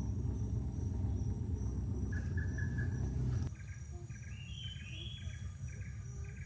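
Rainforest ambience: a steady high-pitched insect drone with short repeated bird chirps and whistles. A low rumble under it stops abruptly about halfway through.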